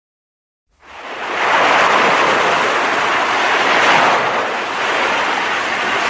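A steady rushing noise with no pitch or rhythm, fading in about a second in and then holding loud with a slight swell, the kind of noise made by surf or wind.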